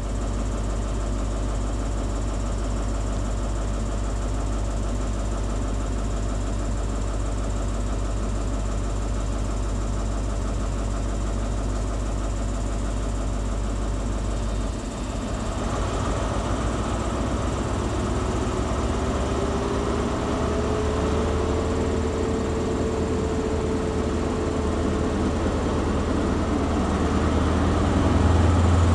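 Class 43 HST power car's MTU 16V4000 diesel engine running steadily at standstill. About halfway through the engine note changes and gets a little louder, and a faint whine holds over the second half.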